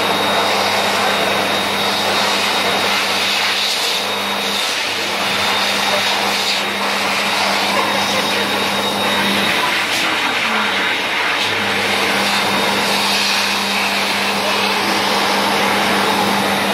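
Electric wall-mounted hand dryer blowing air steadily, with a motor hum and a thin high whine under the rush of air.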